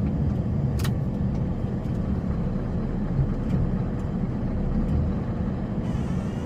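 Snowplow vehicle's engine running with a steady low rumble as it drives and pushes snow, with a sharp click just under a second in.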